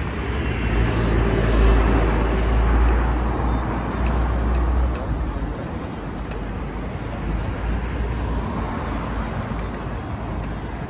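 Street traffic: a motor vehicle rumbles past during the first half, under a steady wash of city street noise.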